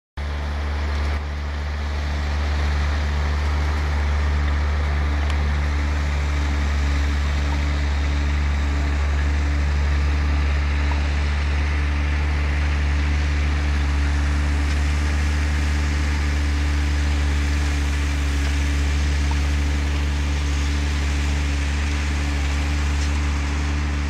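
New Holland 6050 tractor's diesel engine running steadily under load, pulling a four-furrow plough: a constant deep hum with no change in pitch.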